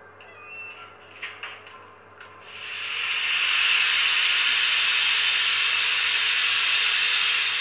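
Sound decoder in an HO scale Norfolk and Western J-class steam locomotive model playing a steady steam hiss through its small speaker. A few faint clicks come first, and the loud hiss starts about two and a half seconds in.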